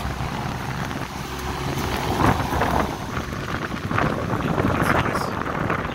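Electric fan with a wire grille running on inverter power, its air stream buffeting the microphone as a steady wind-like rush that surges unevenly, over a low steady hum.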